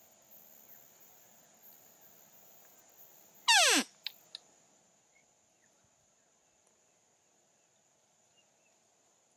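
A hunter's loud, short call falling steeply in pitch, about three and a half seconds in, made to get a bedded chital stag to stand up; two short clicks follow. A steady high-pitched hum runs underneath.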